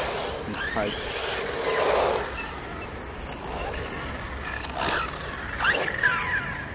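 Small electric RC cars driving on wet asphalt: tyres hissing on the wet surface and electric motors whining, the pitch rising and falling with throttle, most plainly in the last two seconds.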